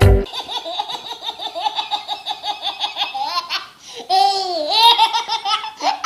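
High-pitched laughter sound effect: a rapid run of short giggling bursts, about seven a second, then after a brief pause a few longer, drawn-out laughing notes that rise and fall.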